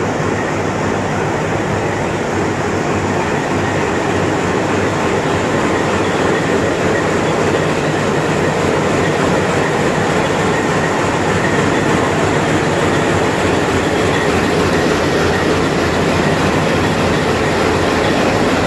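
Steady railway train noise: a continuous rumble and rattle that grows slightly louder over the first several seconds.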